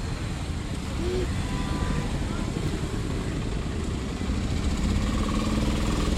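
Street traffic: vehicle engines running and idling close by, a steady low rumble.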